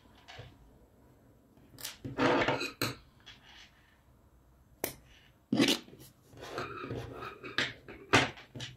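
Irregular rustling and handling noise from a chenille-yarn crochet toy being worked with a sewing needle and turned over on a table, with sharp clicks among it, one of them a scissors snip trimming the yarn tail.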